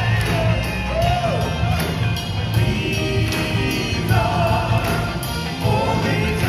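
Live band music with a steady beat: heavy bass, regular cymbal strokes and a wavering lead melody line over the top.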